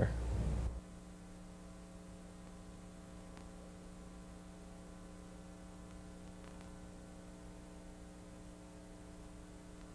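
Faint, steady mains hum: a low electrical buzz made of several steady tones, with light hiss over it.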